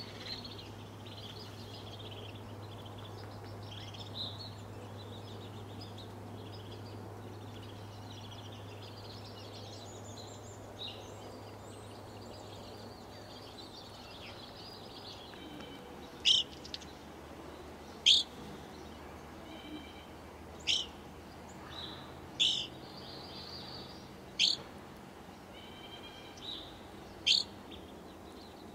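A flock of evening grosbeaks calling: a continuous chatter of high chirps, then from about halfway a series of six loud, sharp call notes about two seconds apart.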